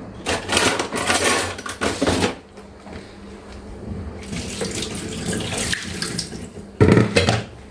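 Kitchen tap water running as a handful of whole cloves is rinsed under it. The splashing is loudest in the first two seconds, quieter through the middle and briefly louder again near the end.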